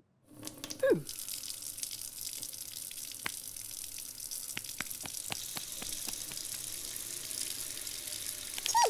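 Kitchen mixer tap turned on about a second in, then water running in a steady stream into the sink, with small scattered splashes.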